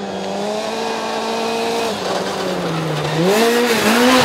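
Rally car engine running at high revs: a steady note that sags after about two seconds, then climbs sharply with quick rises and falls in revs near the end as the car accelerates.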